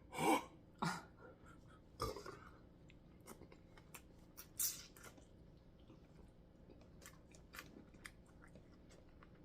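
Close-up eating sounds from seafood boil: chewing with wet mouth noises and scattered sharp clicks, and a brief hissing suck about four and a half seconds in.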